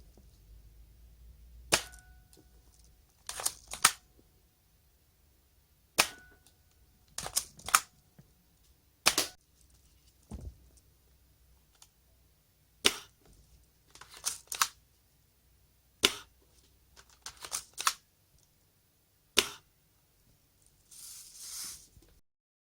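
Silencer-fitted Tokyo Marui Light Pro M4 spring airsoft rifle being fired and worked repeatedly: single sharp snaps about every three to four seconds, with quicker clusters of clicks between them. A short soft hiss comes near the end.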